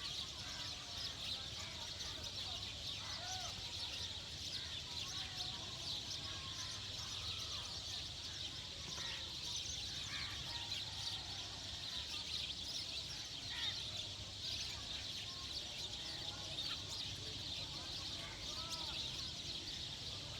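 Many birds calling at once in a dense, steady chorus of high chirps, with lower curving calls scattered through it and a low steady hum underneath.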